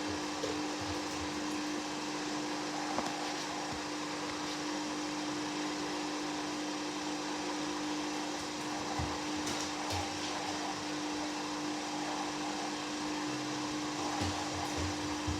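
Hoover Dynamic Next 7 kg front-loading washing machine in its spin cycle: motor and drum running at a steady high speed with a constant whine and rushing air, and a few light knocks.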